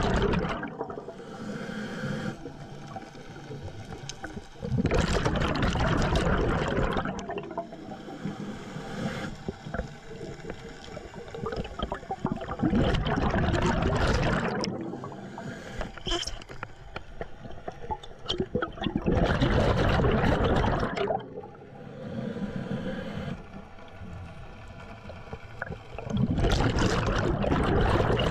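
Scuba diver breathing through a regulator underwater: exhaled bubbles gurgle past the microphone in loud bursts of a second or two, about every seven seconds, with quieter breathing in between.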